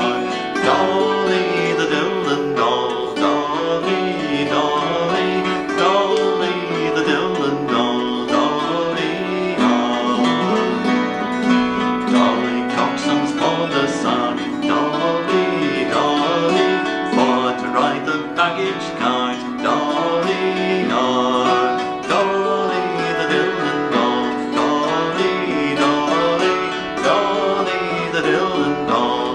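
A man singing a Northumbrian folk song to his own acoustic guitar, with a hammered dulcimer struck alongside.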